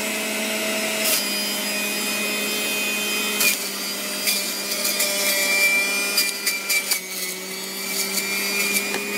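Electric juicer motor running steadily as vegetables are pushed through, with scattered crunching as pieces are shredded. The motor's hum shifts slightly in pitch a few times as it takes the load.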